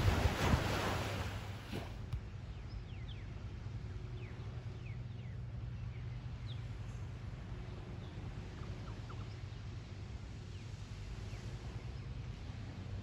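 Wind buffeting the microphone over breaking surf for about two seconds, then a small outboard motor idling with a low steady hum from offshore while birds chirp in short calls; near the end the motor's pitch begins to rise as the boat gets under way.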